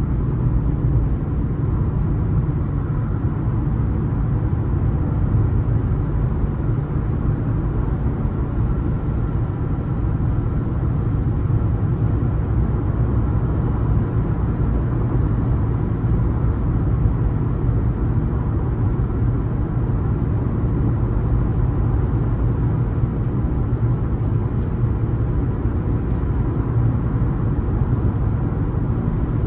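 Car driving at a steady speed: a constant low rumble of engine and tyre noise.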